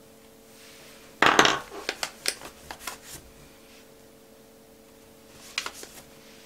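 Hard plastic clatter and clicks of makeup being handled. An eyeshadow palette is picked up: one sharp knock about a second in, a run of lighter clicks after it, and a few more clicks near the end.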